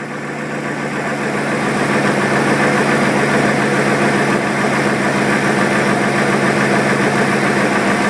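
Car engine idling steadily, growing a little louder over the first two seconds and then holding even, with no change in engine speed.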